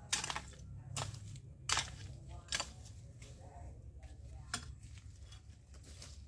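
A long-handled hand tool scraping and striking dry, littered ground in several short strokes about a second apart, most of them in the first three seconds.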